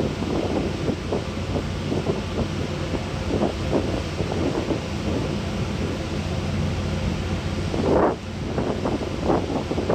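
Steady low hum of a passenger ferry's engines, heard from the open deck while the ship is under way, with wind gusting on the microphone, strongest about eight seconds in.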